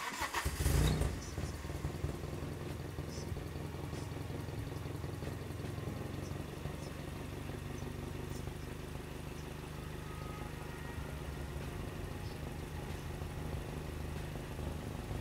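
Toyota 4A-GE 20-valve Silver Top inline-four, newly fitted with a turbocharger, fires up with a brief flare of revs in the first second, then idles steadily.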